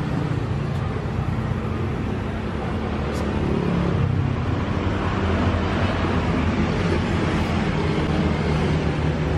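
Steady road-traffic noise: a continuous rumble and hiss of passing vehicles.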